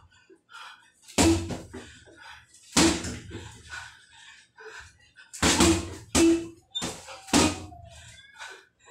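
Gloved punches landing on a hanging heavy bag: five loud thuds at uneven intervals, with fainter knocks in between.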